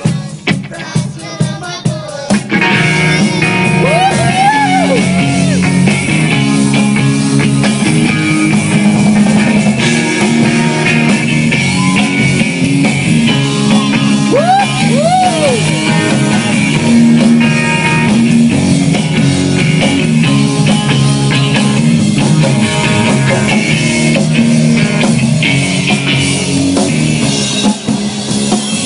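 Live rock band playing loudly: electric guitar and drum kit. It opens with a few separate, evenly spaced hits, and the full band comes in about two seconds in, with a couple of short rising-and-falling pitch slides along the way.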